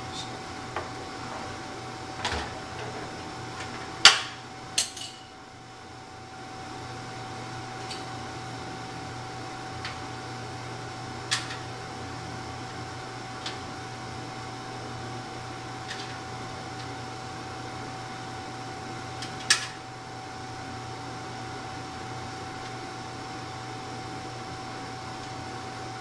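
Computer parts and case being handled during assembly: a few scattered sharp clicks and knocks, the loudest about four seconds in, over a steady background hum.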